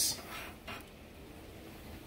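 Low, steady room tone with two faint, brief noises in the first second.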